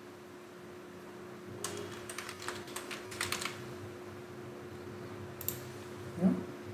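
Typing on a computer keyboard: a quick run of keystrokes about two seconds in, lasting about a second and a half, then a single click later on. A short rising tone near the end, over a faint steady hum.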